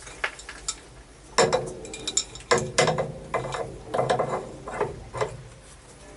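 Steel adjustable wrench clinking and clanking against a metal pipe fitting as it is set and adjusted on the plumbing: a string of sharp metallic clicks starting about a second in.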